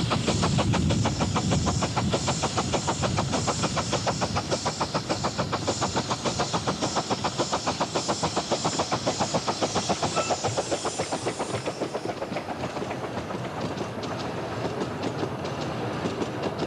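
Miniature steam locomotive of the 15-inch-gauge Romney, Hythe and Dymchurch Railway passing close with its train of carriages, making a rapid, even rhythmic beat of chuffing and wheel clatter. The beat grows fainter over the last few seconds as the train moves away.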